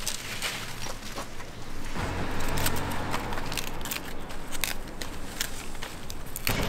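Ornamental kale being worked by gloved hands: irregular crisp snaps and rustles as leaves are broken and stripped off the stems. A low rumble runs underneath for a couple of seconds in the middle.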